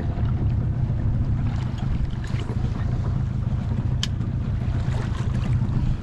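Boat engine running steadily with a constant low hum over wind and water noise, and one brief sharp click about four seconds in.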